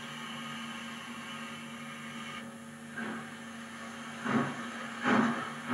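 Steam tank locomotive starting away, its exhaust beats beginning about three seconds in as a few slow, separate chuffs over a steady hum and hiss.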